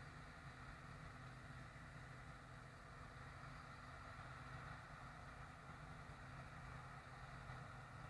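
John Deere 975 combine harvester running steadily, its engine and threshing machinery giving a faint, even drone.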